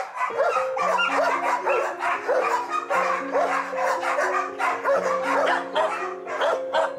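Dogs barking over and over, in short barks two or three a second, over background music with long held notes.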